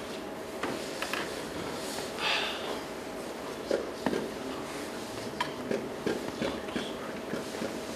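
Classroom room tone: a steady faint hum with scattered small clicks and knocks, and a brief rustle about two seconds in.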